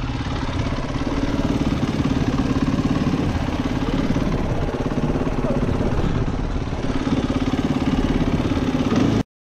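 Dual-sport motorcycle engine running steadily at low speed, heard from the rider's own bike, with an even pulsing throb; it cuts off suddenly near the end.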